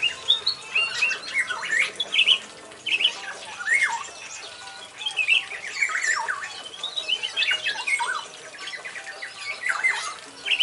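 Black-naped oriole calling over and over in a string of quick chattering notes and downward-sliding calls, in bursts every second or two. This is the bird in full voice ('gacor'): a wild-caught oriole that has settled into its aviary.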